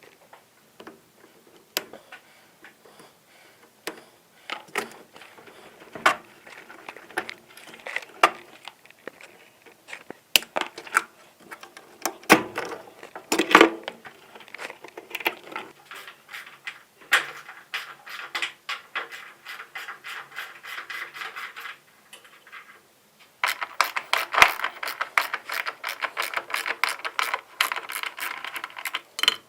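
A ratchet wrench clicking in runs as fasteners on a washing machine are undone, with separate knocks and clatter of metal parts in between. The clicking is fastest and densest near the end.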